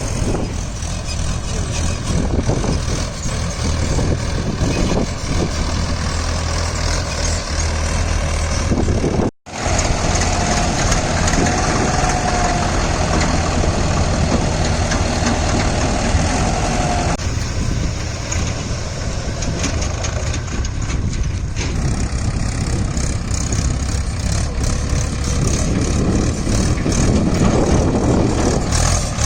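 Diesel engines of a tractor and a JCB 3DX backhoe loader running under load while the backhoe pulls a loaded tractor-trolley out of mud. The engine noise is steady and unbroken apart from a sudden split-second drop to silence about nine seconds in. A steady whine sits over it for several seconds after that.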